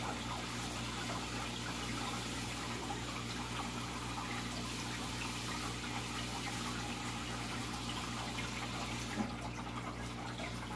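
Aquarium water running steadily, with trickling and splashing from the filter return, over a low steady hum. There is one small click about nine seconds in.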